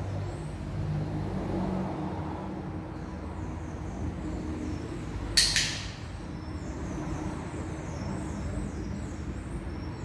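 A dog-training clicker clicks once about halfway through, a quick double snap of press and release, over a steady low background rumble. The clicker is being charged: the click marks the food reward that follows.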